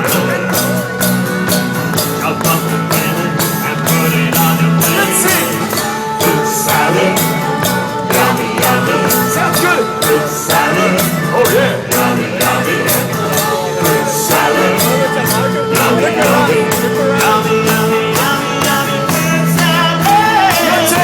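Live band music with singing over a steady, evenly spaced percussion beat.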